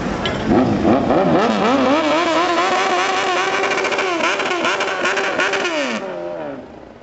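A scooter engine revving hard, its pitch swinging up and down repeatedly, then falling away and fading about six seconds in.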